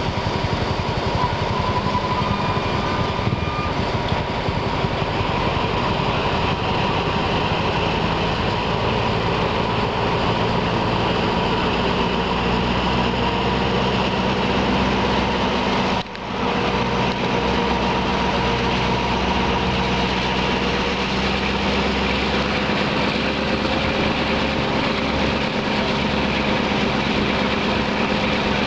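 Steady running noise of a diesel-hauled passenger train, heard from an open coach window: a continuous drone with several held tones over wheel and air noise. The engine note creeps slightly higher in the second half. There is a brief sharp drop in loudness a little past halfway.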